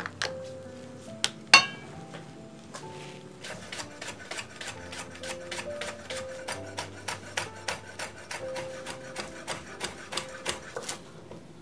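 Chef's knife chopping a leek and then red chili on a wooden cutting board: a regular run of short chops, about three to four a second, over background music. A single sharp knock comes about a second and a half in.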